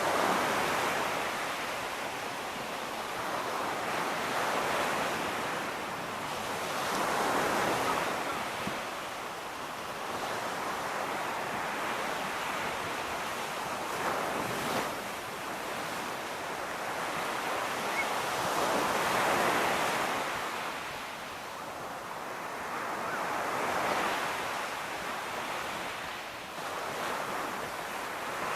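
Ocean surf washing onto a beach, a steady rushing that swells and fades again every few seconds as waves break.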